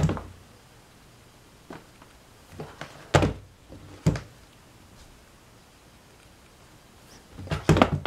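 Dull thunks and knocks as a plastic box fan is handled and shifted on a wooden floor. They come one at a time, the loudest about three seconds in, with a quick cluster of knocks near the end.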